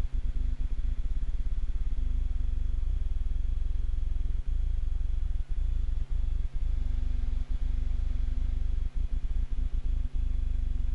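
Steady low drone of a light aircraft's engine and airflow, heard from inside the cockpit.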